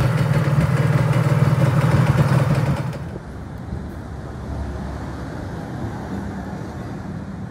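Honda EZ-9 minibike's 49cc two-stroke engine idling steadily. A louder sound with a strong low hum fills the first three seconds and drops away abruptly.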